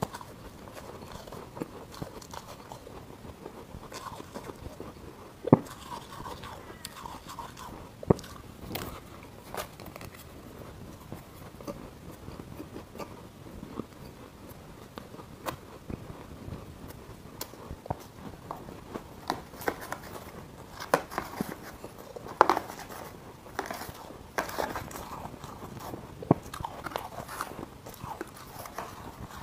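Close-miked crunching and chewing of mouthfuls of frost ice, with a metal spoon scraping in a glass dish between bites. The crunches come irregularly, a few sharp loud ones standing out, and grow busier in the second half.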